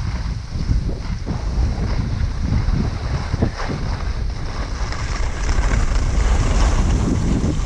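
Wind buffeting the microphone of a skier moving downhill, over the hiss of skis sliding on packed snow. The rush grows louder in the last couple of seconds.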